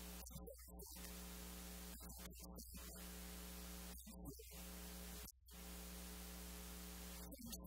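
Steady electrical mains hum with static hiss, cut by several brief dropouts in which only faint snatches of a man's voice come through. This is an audio fault in which the preacher's speech is almost entirely lost.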